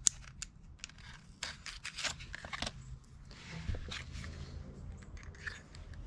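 A plastic blister pack crackling and clicking as a drill bit is worked out of it, then a cordless drill being handled, with a low knock a little before four seconds in.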